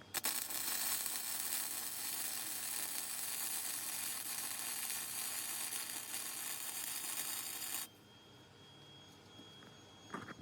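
Electric arc welding a bead onto a go-kart's front dead axle: a steady, even hiss of the arc for about seven and a half seconds that stops suddenly near the end.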